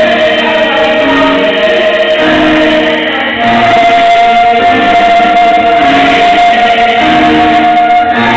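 Mixed choir of men's and women's voices singing in long, sustained chords. About three and a half seconds in, the top voices move up to a higher held note while the lower parts keep shifting beneath it.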